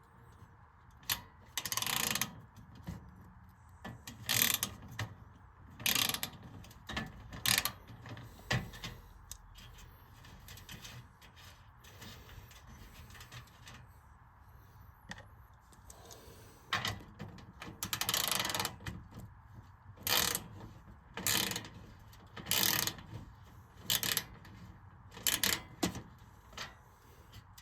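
Ratchet wrench clicking in short bursts, with pauses between them, as bolts on the fan's housing are worked loose.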